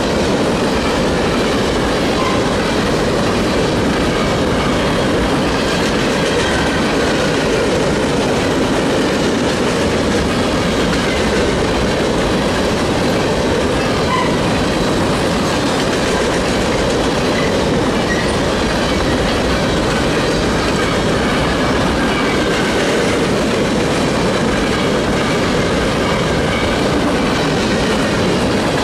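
A train rolling past, its steel wheels clattering steadily over the rails with a continuous rumble, and faint wheel squeals now and then.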